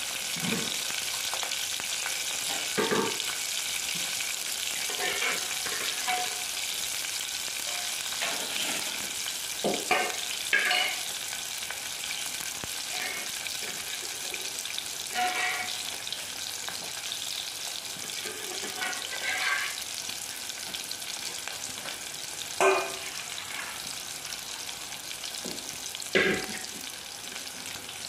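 Sliced onions frying in hot oil: a steady sizzle, with a sharp short knock or pop every few seconds. The onions are at the start of being fried until they turn reddish-brown.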